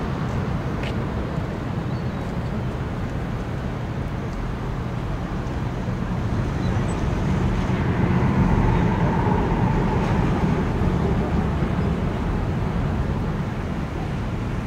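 Steady low mechanical rumble of distant engines. It swells about halfway through and eases off near the end.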